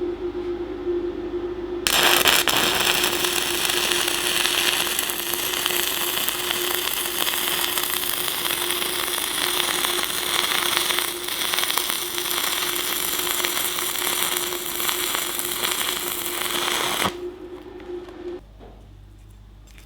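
Stick (MMA) welding arc from a Decapower Ecoarc 160 inverter welder: the arc is struck about two seconds in, crackles steadily for about fifteen seconds, and breaks off a few seconds before the end. A steady hum runs underneath throughout.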